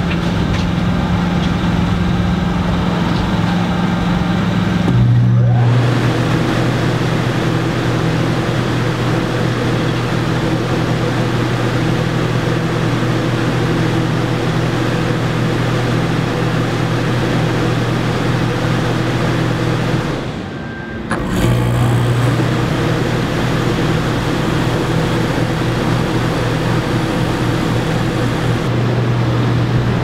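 Dometic Brisk II RV air conditioner running, with its condenser fan and compressor giving a steady loud hum; the compressor has a Supco SPP6 hard start capacitor fitted and is being restarted repeatedly. The hum shifts lower about five seconds in, and the sound drops out briefly about two-thirds of the way through before resuming.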